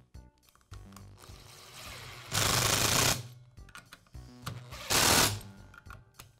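Power screwdriver running in two short bursts, driving the screws that hold on a circular saw's motor cap: a longer run about two seconds in and a shorter one near the end.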